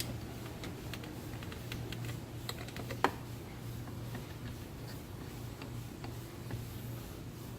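Scattered light clicks and taps of tools and parts being handled, with one sharper click about three seconds in, over a steady low hum.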